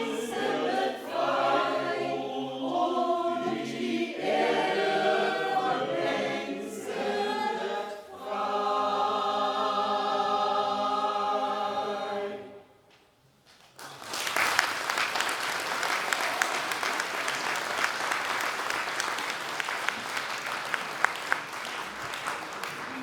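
A choir sings the last phrases of a song and holds a long final chord, which stops about halfway through. After a moment of quiet, the audience applauds.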